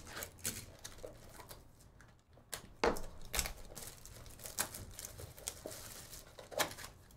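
Plastic shrink wrap crinkling and tearing as it is peeled off a cardboard trading-card box, in irregular crackles with a few sharper ones.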